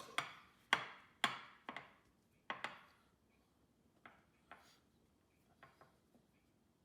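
Sharp knocks on a kitchen surface as chicken is dredged in flour, about five in the first three seconds, then a few lighter taps.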